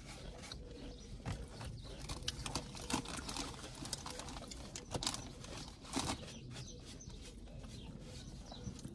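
Quiet eating sounds: chewing a sub sandwich, with soft rustling of a paper napkin and scattered small mouth clicks.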